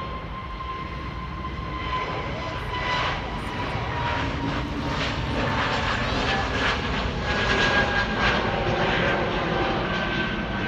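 Airbus A320 jet engines at takeoff thrust as the airliner rolls down the runway and lifts off: a steady rumble with a thin engine whine that slowly falls in pitch. It grows louder to a peak about seven or eight seconds in.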